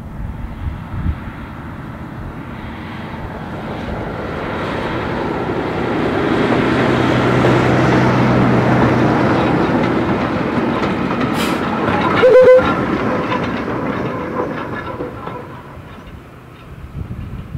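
Diesel locomotive passing close by, hauling a small shunter and a brake van: the engine grows louder to a peak in the middle, then fades as the train goes away. Wheels click over the rail joints, and a brief loud sharp sound comes about two-thirds of the way through.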